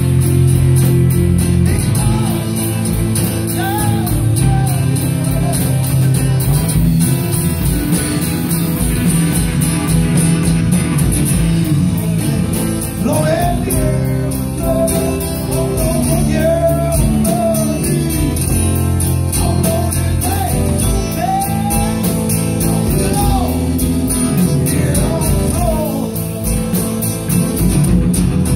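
Live rock band playing on electric guitars and drums, with a wavering lead line over the steady rhythm.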